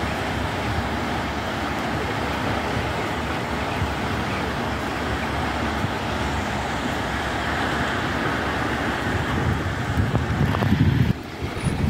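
Steady wash of rain and road traffic noise. A low vehicle rumble builds near the end, then the sound drops abruptly.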